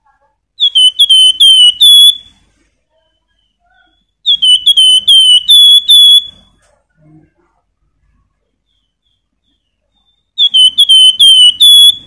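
Javan fulvetta (wergan jawa, the 'flamboyan' songbird) singing loudly in three bouts. Each bout is a quick run of five or six clear, hooked whistled notes, and the last notes of each run are a little higher.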